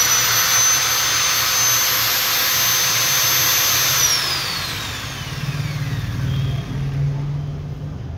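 KPT 13 mm electric drill running at full speed with a steady high whine, then switched off about four seconds in and spinning down, the whine falling away over the next three seconds or so. It is a test run after its damaged roller bearing and 607 ball bearing were replaced.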